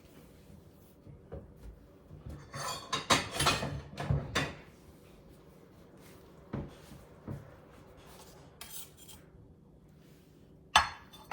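Kitchen clatter of dishes being handled: a run of scraping and knocking about two to four and a half seconds in, a few lighter knocks after, and a sharp clack near the end.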